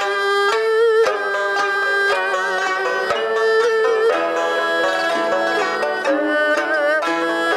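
Chinese traditional string ensemble of zheng, pipa, sanxian and erhu playing together. Plucked zither and lute notes sound under and around sustained lines with wavering, bent pitches.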